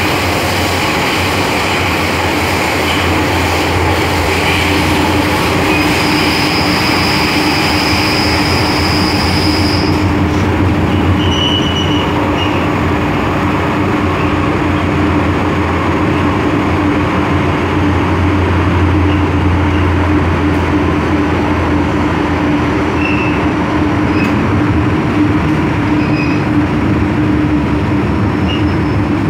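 Cabin noise inside an MTR M-Train metro car on the move: a steady rolling rumble with a constant low hum, a high whine held for a few seconds, and a few short high wheel squeals.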